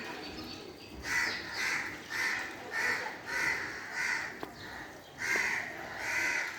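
Crows cawing in a run of short, harsh calls, about two a second, starting about a second in, pausing briefly, then two more caws near the end, over a faint steady background hum.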